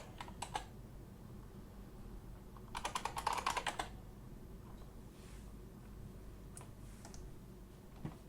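Typing on a computer keyboard: a brief run of keystrokes at the start, a quicker run lasting about a second around three seconds in, then a few scattered key presses.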